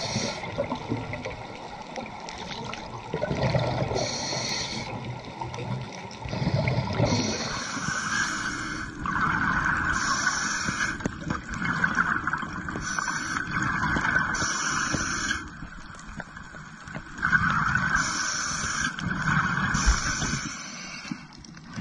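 Scuba diver's regulator breathing: a hissing inhale every few seconds alternating with gurgling, rumbling exhaled bubbles.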